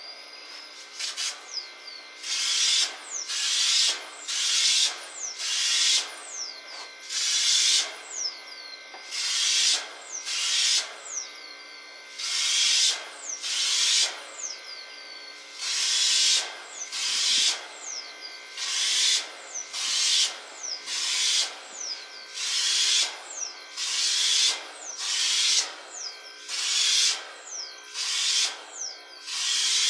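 Homemade compressed-air spray gun, built from an insecticide pump sprayer, spraying varnish in short hissing bursts, about one a second, each burst started and stopped by covering and uncovering a control hole on the gun. A faint steady hum of the running air compressor lies underneath.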